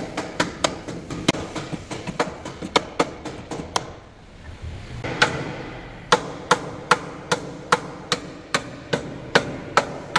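Repeated hand-hammer blows on a steel front chassis rail held under chain pull on a frame straightening bench, about three sharp, ringing metallic strikes a second, with a pause of about a second near the middle. The hammering is part of straightening the accident-damaged rail before it can be cut out and replaced.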